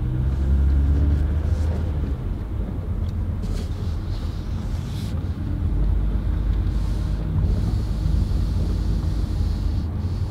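Toyota Sienna minivan under way: a steady low rumble of engine and road noise.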